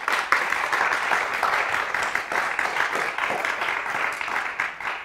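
Applause, a dense patter of clapping hands that dies away near the end.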